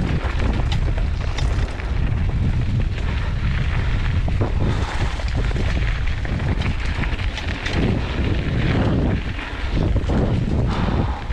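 Mountain bike descending a rough dirt trail: wind rushing over the microphone and the tyres rumbling on the ground, with frequent rattles and knocks from the bike over bumps.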